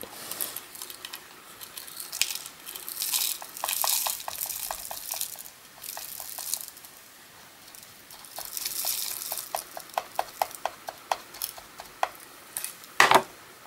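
Black powder-coated rice hulls poured into a cardboard tube: soft rustling hiss in stretches, with runs of quick light ticks and one louder knock near the end.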